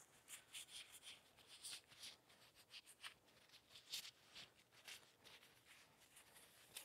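Faint rag rubbing and scrubbing on the back of an excavator boom, wiping off grease with mineral spirits: quick, irregular scratchy strokes.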